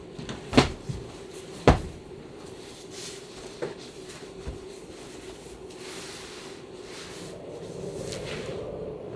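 Two sharp knocks about a second apart, then a few fainter taps, over a steady low hum.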